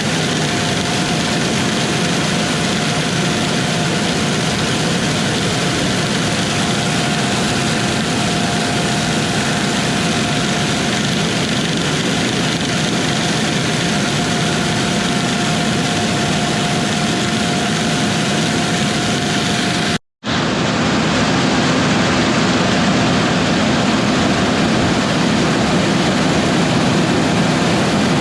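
Large farm machinery engines running steadily at work, with a thin steady whine over the noise. About two-thirds of the way in, the sound drops out for an instant and returns without the whine and with a lower hum.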